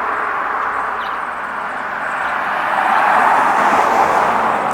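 A passing motor vehicle: a steady rushing noise that swells about three seconds in.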